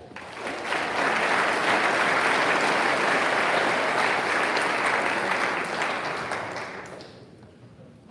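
Audience applauding, swelling up within the first second and dying away about seven seconds in.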